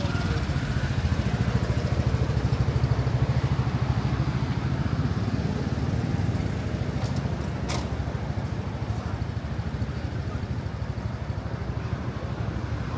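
Street traffic: a steady rumble of motor vehicles passing, loudest in the first few seconds, with a single sharp click about two-thirds of the way through.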